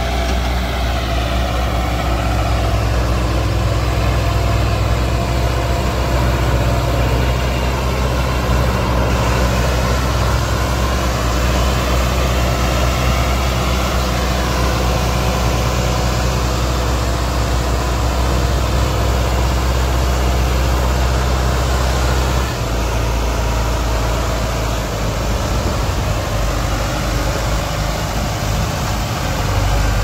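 Sonalika DI 750 III tractor's diesel engine running under load as it pulls a trolley heaped with soil. The steady low engine note changes character twice, and its deepest part drops away about three-quarters of the way through.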